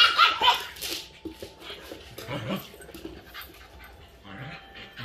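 An English Bulldog puppy and a Shetland sheepdog play-fighting. A sudden loud, high-pitched dog yelp opens the sound, followed by scattered scuffling and short low dog vocalizations.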